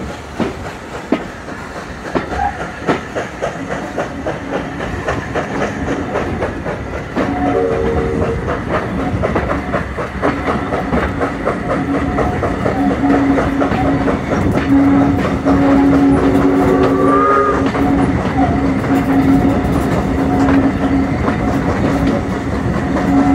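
Steam-hauled heritage train running, heard from an open carriage window, its coach wheels clicking steadily over the rail joints. It grows louder about seven seconds in, and a steady tone drones on and off through the second half.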